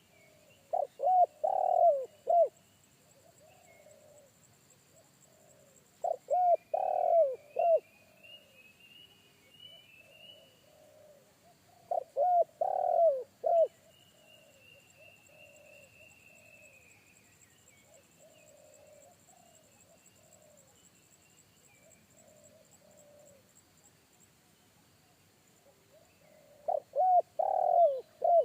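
Spotted dove (tekukur) cooing: four phrases of several deep notes, roughly six seconds apart, the last coming after a longer pause near the end. Faint, higher whistled bird calls and a faint high pulsing trill carry on between the phrases.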